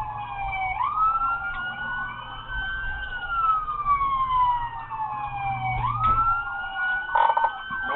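Police siren wailing in a repeating cycle: a quick rise in pitch about a second in, a slow fall over several seconds, then another quick rise near the end. A steady low vehicle rumble runs underneath.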